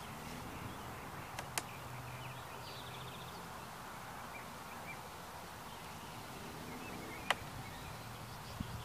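Metal hive tool working the wooden frames of an open beehive, with two sharp clicks, one about one and a half seconds in and another about seven seconds in, over a low steady hum of honeybees. Birds chirp faintly.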